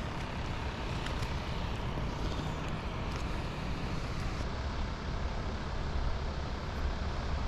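Steady wind noise on the microphone, a low rumble with a hiss above it and no clear events.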